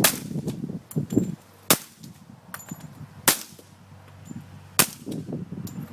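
Four suppressed gunshots at a steady pace, roughly one every one and a half seconds, each a short sharp crack.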